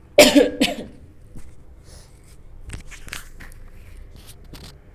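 A tissue-wrapped stone set down on a metal pot lid: a loud scraping clunk just after the start, then a few light knocks and tissue paper rustling.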